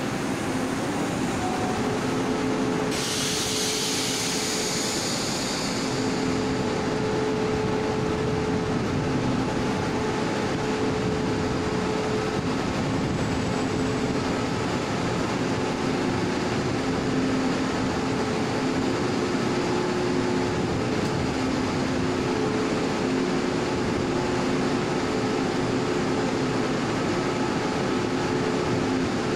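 Taiwan Railway Tze-Chiang express train pulling slowly out of the station: a steady run of train noise with a held electric hum of a couple of tones. About three seconds in, a loud hiss lasts for about three seconds.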